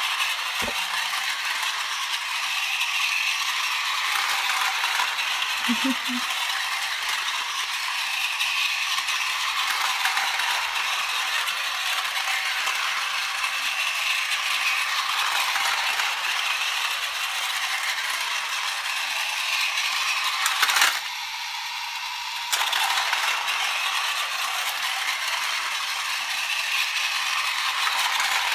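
Plarail MTR Airport Express toy train running at its fast setting on plastic track: a steady whirring and rattling of its battery motor, gears and wheels. The sound swells and fades every five or six seconds as the train laps the loop.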